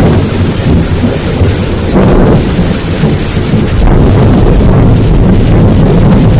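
Heavy downpour hissing steadily under a loud, continuous low rumble of thunder.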